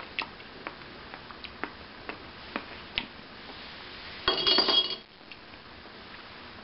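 Metal spoon clinking lightly against a stainless bowl of croutons and ceramic dishes, in short clicks about every half second. About four seconds in comes a louder metallic clatter that rings for about half a second.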